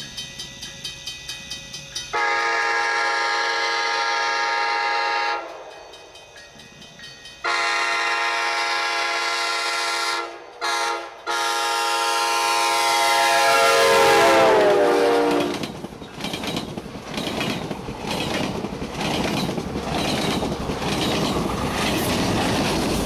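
A GO Transit locomotive's K5LA five-chime air horn sounds the grade-crossing signal, long, long, short, long, over the steady ticking ring of the crossing's electronic bell. The horn's pitch drops as the locomotive passes, then the train rumbles and clatters by.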